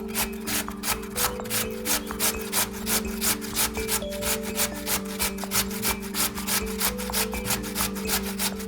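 A raw potato rubbed against a hand grater in quick, even scraping strokes, about three a second, over background music.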